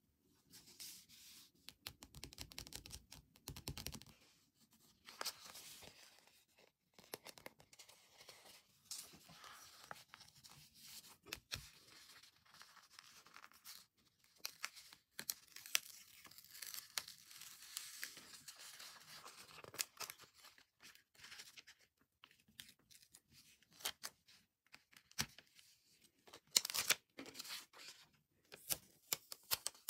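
Stickers being peeled off a paper backing sheet, with the sheet handled and rustled: an irregular, crackly peeling sound broken by small clicks, loudest in a burst near the end.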